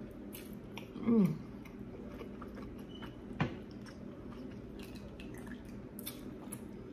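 Close chewing and wet mouth clicks of someone eating buttered lobster tail meat. About a second in comes a short hummed "mm" that falls in pitch, and a sharp click comes about three and a half seconds in.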